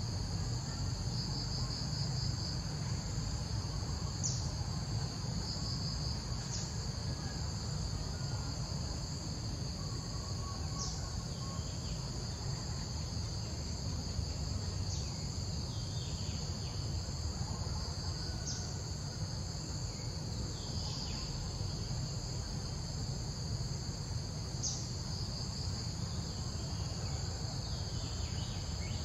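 Insects chirring steadily in a high, pulsing drone over a steady low rumble, with a few short high chirps and falling calls scattered through.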